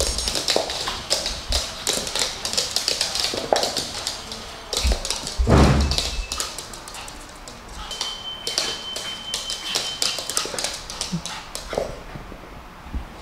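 Two small dogs play-fighting on a hardwood floor: their claws click and scrabble on the wood, with a few short dog vocal sounds, loudest about five seconds in.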